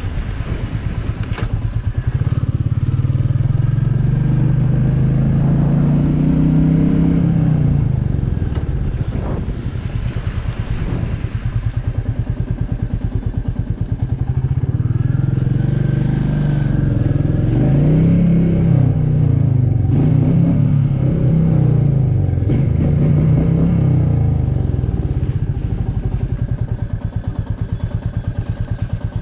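Royal Enfield Meteor 350's single-cylinder engine running at low speed. Its note rises and falls several times as it speeds up and slows, then stays low and steady near the end.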